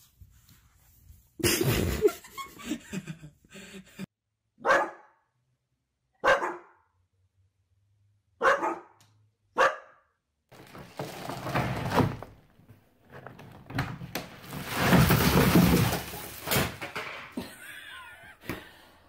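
Dog barking: several short single barks a second or two apart, between a louder burst near the start and a long, loud, noisy stretch in the second half.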